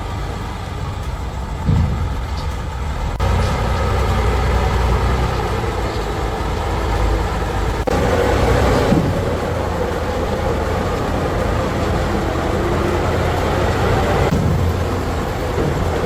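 Heavy truck engine running steadily with a low rumble, its pitch and loudness shifting abruptly about 3 and 8 seconds in.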